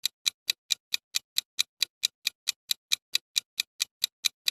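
Quiz countdown timer's clock-style ticking sound effect: sharp, even ticks about four and a half times a second.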